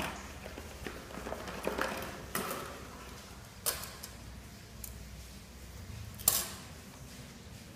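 Hard plastic parts and a small cardboard box being handled and set down on a tabletop: a few sharp clacks, the loudest about six seconds in, with some rustling and light tapping between.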